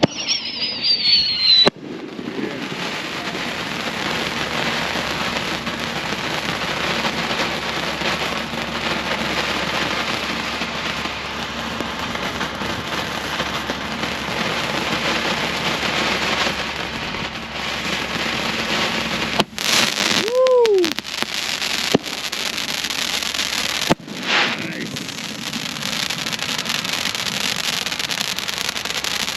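Brothers Pyrotechnics 'Pure Fantasy' consumer fireworks cake firing: a falling whistle in the first second or two, then a long, steady, dense crackle like heavy rain, with another falling whistle about twenty seconds in.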